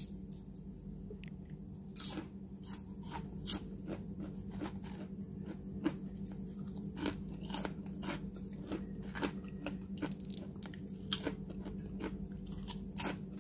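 Someone chewing crisp deep-fried bitter gourd (ampalaya) chips: a string of sharp crunches, roughly two a second, starting about two seconds in, over a steady low hum.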